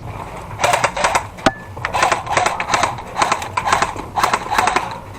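Airsoft electric rifles firing several short full-auto bursts of rapid clicking shots, with one single sharp crack between the first and second bursts.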